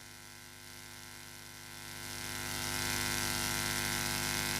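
Steady electrical hum and buzz from the amplified sound setup, made of several fixed tones with a hiss on top. It swells about two seconds in and then holds level.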